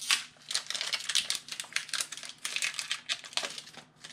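Pokémon TCG booster pack foil wrapper crinkling in the hands, in a run of short crackly rustles.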